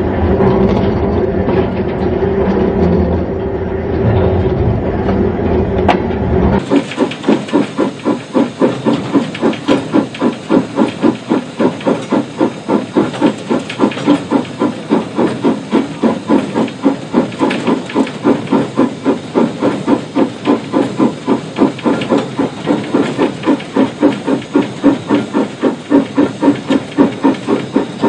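A train running with a steady rumble for about the first six seconds. Then a steam locomotive's exhaust beats take over: loud, even chuffs at about two to three a second with steam hiss, the engine working hard up a steep gradient.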